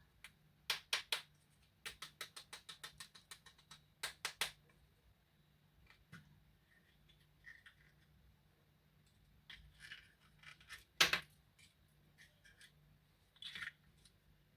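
Close-up crisp clicks and snips from handling candy packaging, with a quick even run of about ten clicks near two seconds in. Softer crinkling follows, and the loudest single click comes about eleven seconds in.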